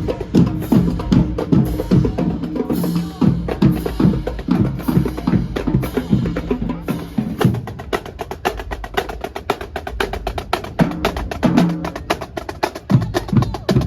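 Background music: a steady drum beat with bass and sharp clicky percussion. The bass drops out about halfway, leaving fast ticking percussion.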